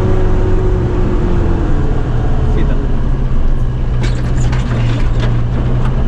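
Off-road SUV's engine pulling at low speed over a rocky trail, heard from inside the cabin, with a series of sharp knocks and rattles from about four seconds in.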